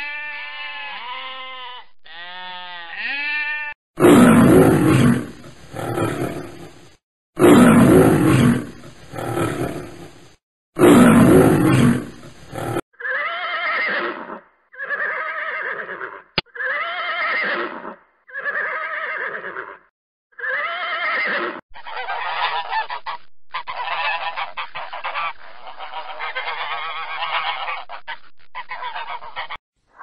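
A run of animal calls: sheep bleating for the first few seconds, then three long, loud calls, then a series of short calls about a second apart, and a denser stretch of calls near the end.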